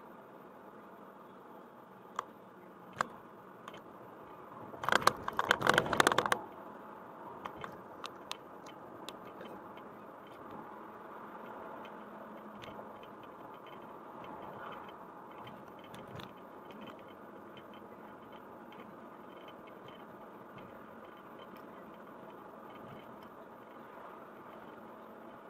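Steady hum of a car being driven, heard from the cabin. About five seconds in there is a burst of clattering rattles lasting a second or so, followed by a few scattered ticks.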